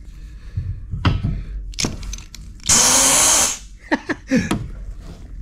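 Compressed air from a shop air hose hissing through a truck air horn for about a second, midway through, with a few small clicks of the fitting before it. The horn gives no proper note because it is plugged up, later found to be a mud dauber nest.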